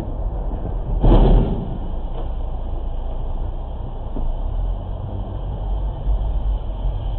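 Steady engine and road rumble heard inside a moving car, with a sudden loud bang about a second in that dies away within half a second, as a dump truck runs close alongside.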